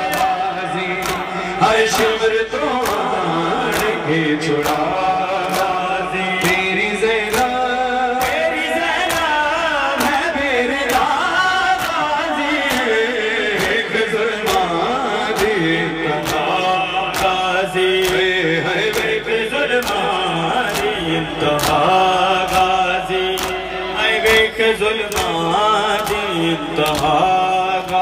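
A male noha reciter and chorus chant a mourning lament in a slow melody, over a steady beat of sharp strikes from a crowd of mourners beating their chests (matam).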